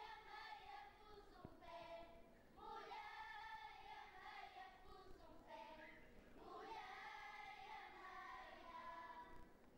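Children's choir singing cante alentejano unaccompanied, faint, in three sung phrases with short pauses between them.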